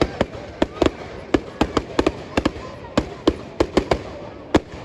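Professional display fireworks going off in a rapid, irregular run of sharp bangs, about four a second.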